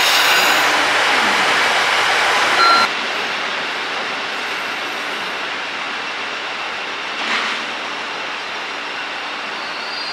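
KiHa 85 series diesel railcar's engines running close by, a loud steady exhaust note. About three seconds in it cuts to a quieter, steady rumble of a KiHa 85 train running on the track at a distance, with a short louder clack a few seconds later.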